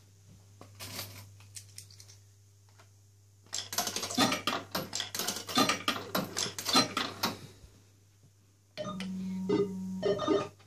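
Old fruit machine: about four seconds of rapid metallic clattering and clinking, then near the end the reels spin with a steady hum and clicking.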